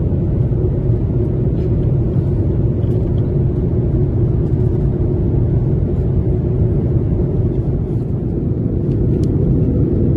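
Steady low rumble of an airliner's cabin in cruise: jet engine and airflow noise heard from a window seat.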